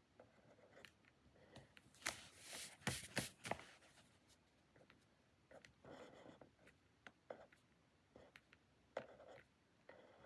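Quiet desk-work sounds: a pen scratching on paper with small scattered taps. About two seconds in comes a louder spell of rustling and sharp clicks lasting a couple of seconds, as things are handled on the desk.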